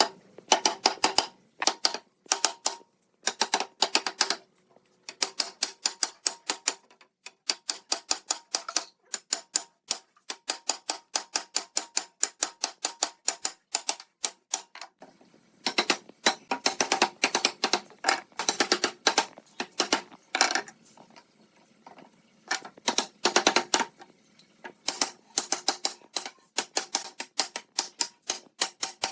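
Rapid runs of sharp knocks on wood, several a second, coming in bursts of a few seconds with short pauses between, as in fast hammer or mallet tapping during woodworking.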